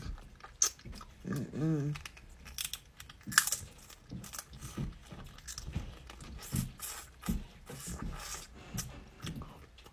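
Close-miked wet slurping and lip-smacking as boiled crawfish meat and seasoning juice are sucked from the shell, a quick run of short smacks and sucks, with a brief hummed "mm" about a second and a half in.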